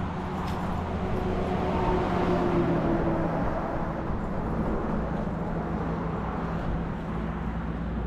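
Road traffic: a steady low rumble with a vehicle passing, its engine and tyre sound swelling about two to three seconds in and then fading.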